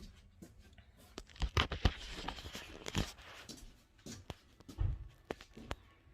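Irregular clicks and knocks of objects being handled, with a short stretch of rustling noise about two seconds in.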